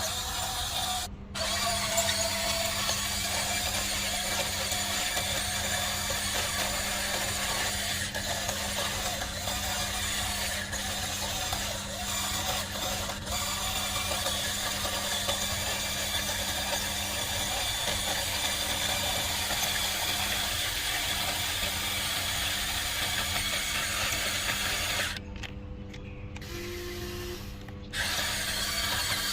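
Small electric motors and plastic gearboxes of a radio-controlled toy construction vehicle grinding and whirring steadily as it works. About 25 s in the grinding drops away for a few seconds, leaving a lower hum, then starts again.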